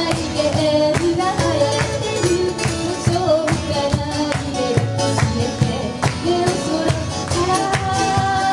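A woman singing a melody over strummed acoustic guitars, with cajon beats keeping a steady rhythm.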